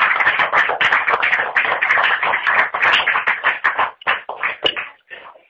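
Live band with electric guitar playing the closing bars of a song through a phone's microphone, a dense run of rapid sharp hits. The playing thins to a few last hits and stops about five seconds in.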